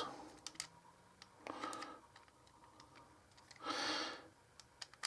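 Faint scattered clicks and ticks of small knife parts and a Torx driver being handled during reassembly of a folding knife.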